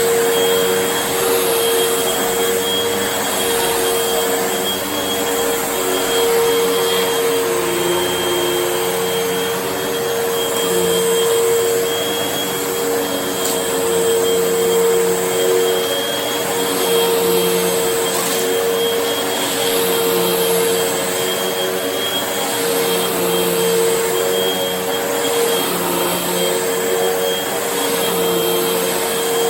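Vacuum cleaner running steadily: a loud, constant motor hum and airflow hiss with a faint high whine, swelling and easing slightly in level.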